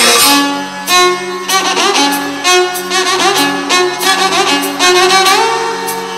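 Instrumental music with a bowed, violin-like melody sliding between notes over a steady low drone, with sharp note attacks about every half second in the first few seconds.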